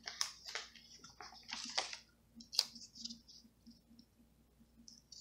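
Planner sticker sheets and paper being handled: a string of short crinkly rustles and clicks, the loudest about two seconds in, with quiet gaps between them.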